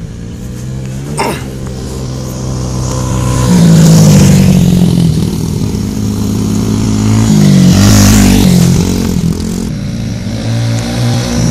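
Yamaha TTR-90 dirt bikes with small four-stroke single-cylinder engines, revving up and down as they ride the track. They are loudest about four seconds in and again about eight seconds in as they pass close, with a short sharp click about a second in.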